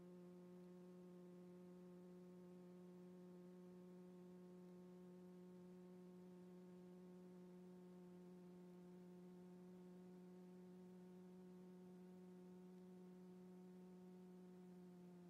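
Faint steady low hum with a stack of overtones, holding a single pitch.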